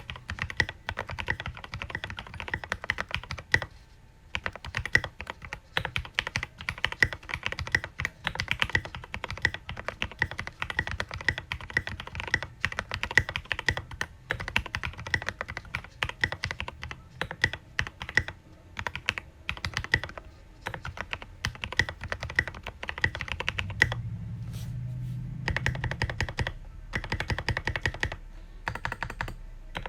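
Steady, fast typing on a Foxlab Key65 mechanical keyboard: lubed Cherry MX Black 63.5 g linear switches in a polycarbonate plate, with tall SP SA keycaps bottoming out in dense clacks. There is a short pause in the typing about four seconds in.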